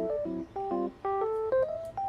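Light instrumental background music: short repeated chords, then a melody of single notes stepping up and down.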